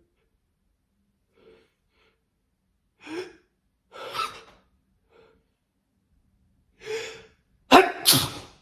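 A person's sharp, gasping in-breaths building up to a sneeze, then a loud sneeze near the end in two quick bursts.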